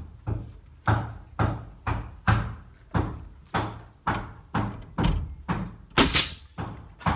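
Nail gun firing in quick succession, driving nails into a wooden stud: a steady run of sharp thumps, about two shots a second, each dying away briefly.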